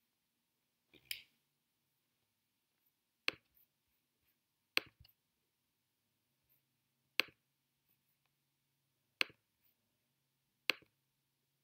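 Six sharp single clicks, one to two and a half seconds apart, from a computer's pointing device being clicked.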